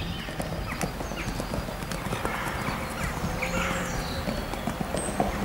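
Hoofbeats of a ridden Anglo-Arabian mare moving over a sand arena, as a run of irregular soft knocks.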